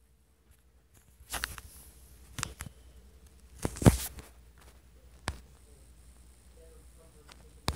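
A handful of sharp knocks and taps, scattered irregularly, the loudest about four seconds in, over a faint low hum.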